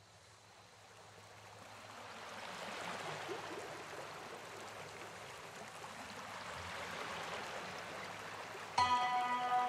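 A steady rushing hiss, like running water, fades in from near silence over the first few seconds and then holds. Near the end, background music with long held tones comes in suddenly.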